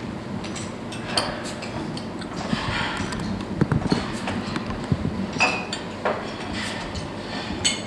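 Tableware clinking and knocking: glasses, bottles and cutlery on a table, a few sharp clinks, one ringing briefly just past the middle, over a murmur of background voices.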